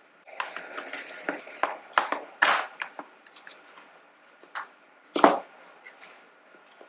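Hands handling a motorcycle ECU and its plastic mounting parts: a run of light clicks and rattles, with sharper knocks about two and a half seconds in and about five seconds in.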